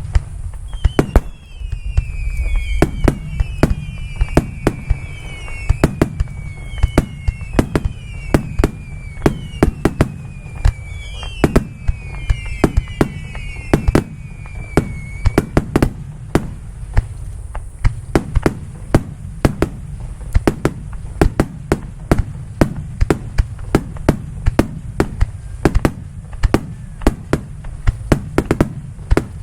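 Aerial fireworks display: a rapid barrage of shell bursts, often several bangs a second, over a continuous low rumble. During the first half several overlapping whistles glide down in pitch.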